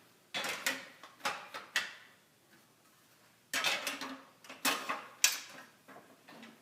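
Sheet-metal parts of a Lozier shelving endcap clicking and clattering as they are handled and fitted into place: a run of sharp knocks, a short pause, then another run.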